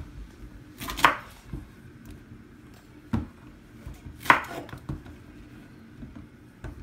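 Kitchen knife cutting ripe plantains on a wooden cutting board: a handful of irregular sharp knocks as the blade strikes the board, the loudest about a second in and again just past four seconds.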